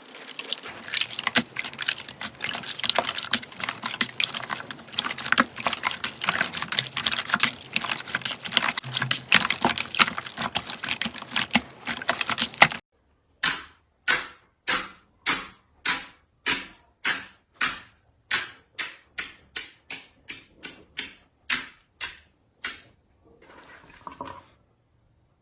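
Slime being squeezed and pressed: dense crackling and clicking for about the first half, then after an abrupt cut a run of about twenty sharp pops, roughly two a second, each dying away quickly.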